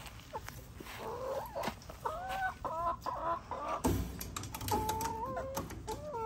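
Domestic hens clucking and calling: a run of short calls in the first half and a longer drawn-out call about five seconds in. A thump and sharp metal clicks and rattles sound from the wire-mesh coop door as it is handled, starting about four seconds in.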